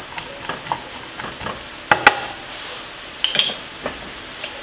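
Diced vegetables sizzling steadily in olive oil in a frying pan while being stirred with a wooden spoon, with a few sharp knocks of the spoon and pan, the loudest about two seconds in.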